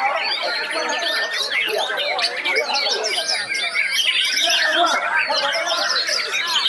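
Many white-rumped shamas singing at once: a dense, unbroken tangle of overlapping whistles, trills and chirps.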